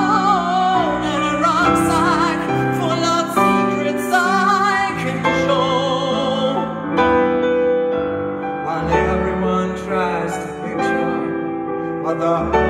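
Live male singing over a grand piano: the voice holds long, ornamented high notes with a wide vibrato while the piano sustains chords beneath.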